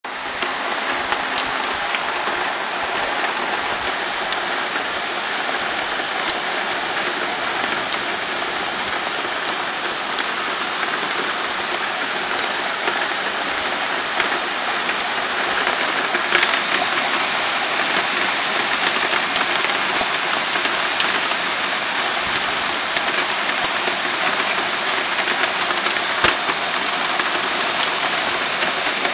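Heavy downpour of a cloudburst: a dense, steady hiss of rain with many sharp ticks of drops through it, growing a little heavier about halfway through.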